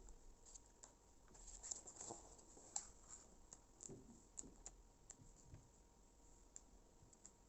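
Faint, irregular light clicks and taps of a paper magazine being handled and its pages turned.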